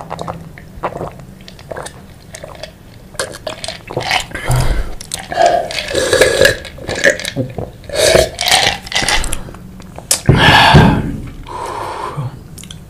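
Close-miked chewing and mouth noises, many short wet clicks, then a loud burp about ten seconds in.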